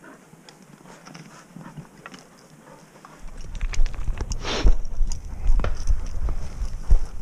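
Footsteps crunching and knocking on loose stony ground, with brush scraping past. About three seconds in they become much closer and louder, with a low rumble and irregular heavy knocks from a body-worn camera.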